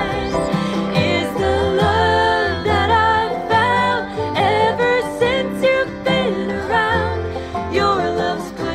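Background country music, a singing voice over guitar-type plucked strings.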